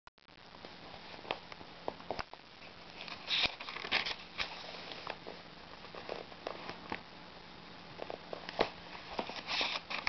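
Paper rustling and scattered small clicks from the pages of an old book being handled, with a longer rustle near the end as a page is turned.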